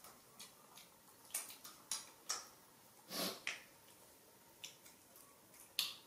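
A young macaque handling a small object in its hands on a plastic stool: scattered sharp clicks and light rustles, with a longer breathy noise about three seconds in.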